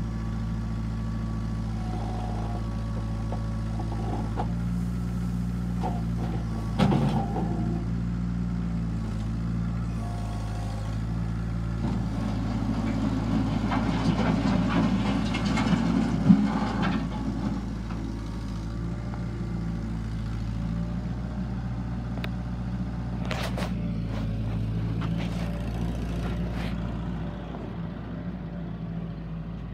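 Kubota L3940 compact tractor's diesel engine running steadily as the tractor drives and works its front loader. Midway it gets louder and rougher for a few seconds, with a sharp knock about seven seconds in and another during the loud stretch.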